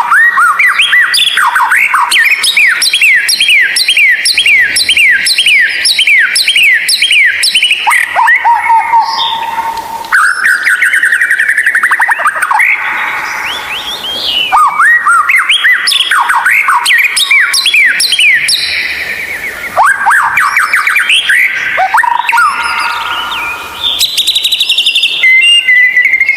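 White-rumped shama (murai batu) song, loud: first a fast run of repeated rising whistled notes, about four a second, then varied whistled phrases broken by short pauses.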